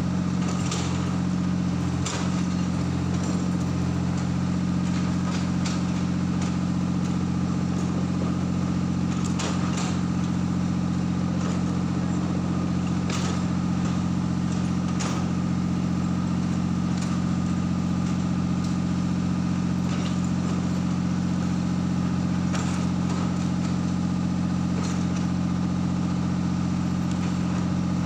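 A machine engine running steadily at an even speed, with scattered brief sharp crackles and clicks over it.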